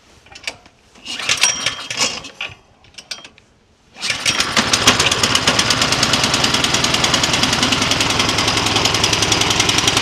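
Troy-Bilt snowblower's Tecumseh OHV engine being pull-started: the recoil starter is yanked, and about four seconds in, on the second easy pull, the engine catches without a backfire and runs steadily, kind of loud. It now starts cleanly because its sticking overhead valve has been freed.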